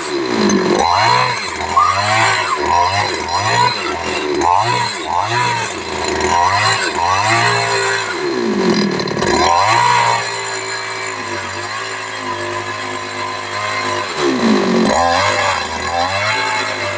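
Chainsaw engine running and being revved up and down over and over, its pitch rising and falling, with a few deep dips in pitch and a steadier stretch in the middle.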